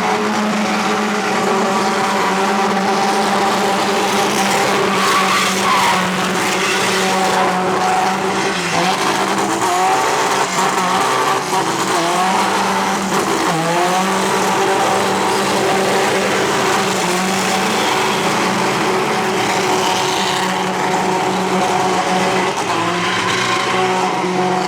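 Car engine held at high, steady revs during a burnout, with tyres squealing and skidding. The revs dip briefly about nine seconds in and again about thirteen seconds in.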